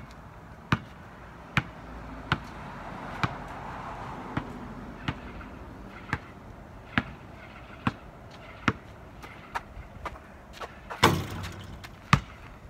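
A basketball dribbled on asphalt, bouncing at an even pace of a little more than once a second. A louder impact with a brief ringing tail about eleven seconds in.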